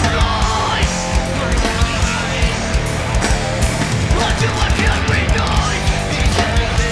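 A rock band playing loud live music, with electric guitar and drums hitting steadily throughout.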